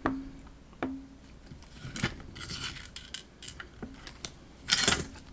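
Small metal parts of a PacLock padlock clicking and clinking as it is taken apart. Two sharp clicks at the start and about a second in each ring briefly. Scattered scraping and rattling follow, and the loudest metallic scrape comes near the end.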